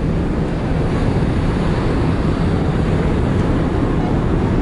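Steady wind noise on the microphone on the open deck of the car ferry Shin Ishikari, mixed with a low rumble from the ship under way.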